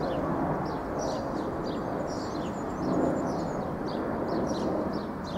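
Small birds chirping in short, high calls, two or three a second, over a steady low rumble of outdoor background noise.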